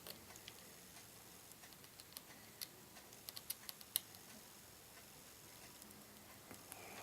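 Faint, scattered small clicks and taps of small tools against an iPhone 5s's tiny internal parts and screws, the most coming between about two and four seconds in.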